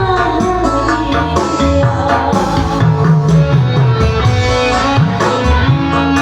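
Instrumental band music with a tabla-like hand-drum rhythm, a moving bass line and a plucked-string melody, with no singing.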